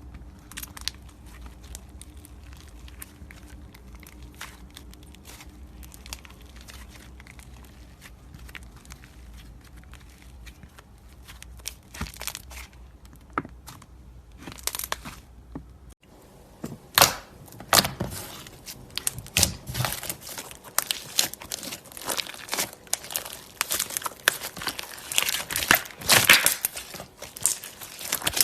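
Slime being squeezed and pressed, giving crinkly crackles and pops. At first the crackles are faint and sparse over a low hum; about halfway the hum drops out and a louder, dense run of crackling and popping follows.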